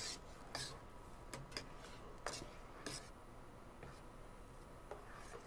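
Faint scraping and tapping of a metal spoon against the inside of a pot while blueberry jam is stirred, in irregular strokes about every half second to a second.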